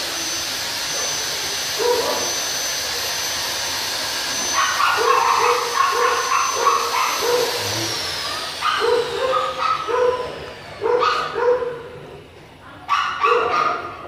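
A dog barking repeatedly in quick bouts, at times about three barks a second. Under the first half runs a steady hiss with a high whine that slides down in pitch and fades out about halfway through.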